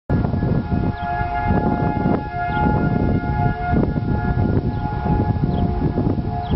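Outdoor tornado warning sirens sounding, several steady held tones at different pitches overlapping, over gusty wind noise buffeting the microphone.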